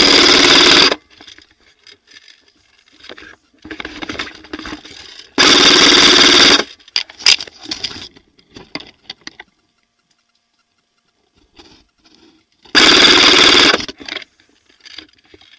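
Airsoft electric gun fired close by in three full-auto bursts of about a second each, the motor and gearbox cycling rapidly, the second about five seconds after the first and the third about seven seconds later.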